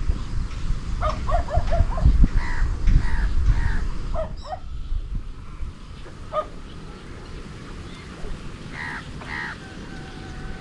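Short animal calls outdoors: a quick series of cries in the first half, a single call, then two more near the end, over a low rumble.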